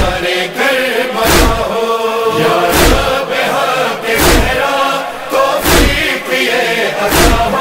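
Urdu nauha (Muharram lament) with a choir of voices chanting between verses over a heavy, evenly spaced thump, about one every second and a half.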